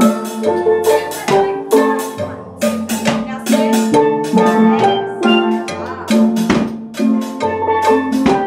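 Steel pan ensemble playing together: struck steel pans ringing out pitched notes in a steady rhythm, with lower notes sounding underneath.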